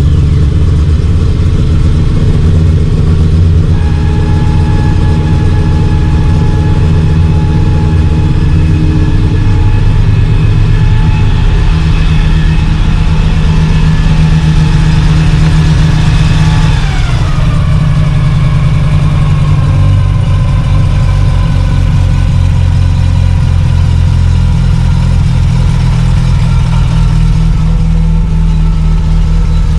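Mazda RX-7 FC's 13B two-rotor rotary engine idling steadily; a little past halfway the revs drop and its whine falls in pitch, settling to a lower idle.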